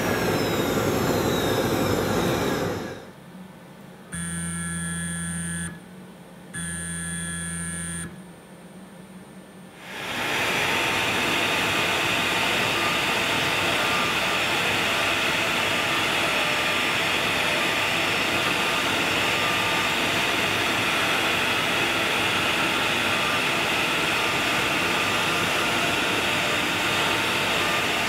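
CNC Router Parts router's spindle and dust collection running while cutting King Color Core HDPE sign board, a steady loud rushing whine. About three seconds in it stops, two long electronic beeps sound, each about a second and a half, and about ten seconds in the cutting resumes steadily with a small-diameter bit on the detail pass.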